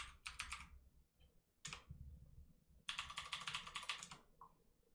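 Computer keyboard typing: a few keystrokes at the start, a single one a little later, then a quick run of keystrokes about three seconds in.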